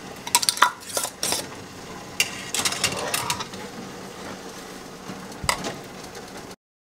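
A metal canning lid clinks onto a glass jar and the screw band is twisted down onto the threads, giving a run of sharp clinks and a short rasping of metal on glass, with one more clink a few seconds later as the sealed jar is set down.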